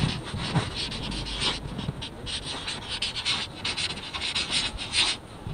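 Permanent marker nib rubbing and scratching across a rough painted wall in quick, irregular strokes as a tag is written.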